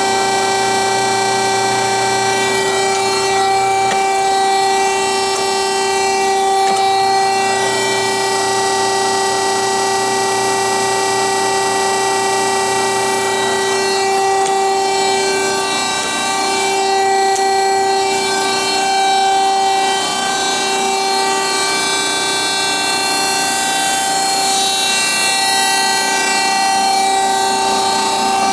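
DoAll TF-2021NC automatic vertical bandsaw running with a steady, high-pitched multi-tone whine.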